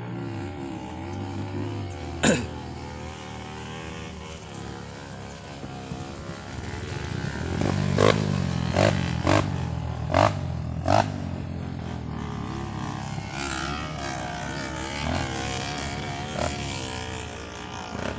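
Dirt bike engine running and revving on a steep uphill climb. Its pitch rises about seven to eight seconds in. There is one sharp crack about two seconds in, and five more between about eight and eleven seconds in.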